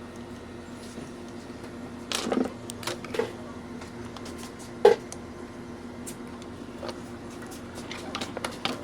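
Scattered clicks and knocks of tools and parts being handled on a workbench, the sharpest about five seconds in, over a steady low electrical hum.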